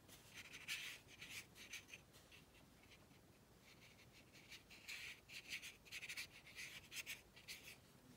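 Faint, short scratchy strokes of a round watercolour brush dabbing and pulling across watercolour paper, in two spells: about a second in and again from about five seconds in.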